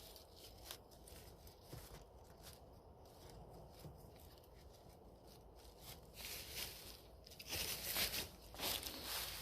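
Dry leaves and twigs crackling and rustling: scattered small snaps at first, then louder, steady crunching and rustling for the last couple of seconds.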